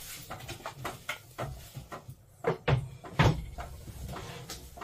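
Series of knocks and clunks as a removable dinette table top and its post are handled and set down, with two louder thumps about two and a half and three and a quarter seconds in.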